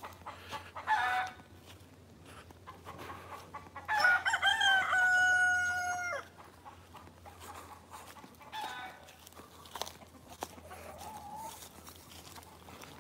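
A rooster crows once, about four seconds in: a single call about two seconds long that rises and then holds a steady pitch. Chickens give a few fainter short calls before and after it.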